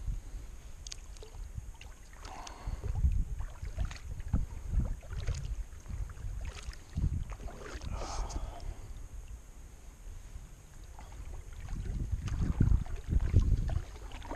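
Kayak being paddled: irregular paddle strokes splashing in the water, with scattered knocks and low rumbling surges.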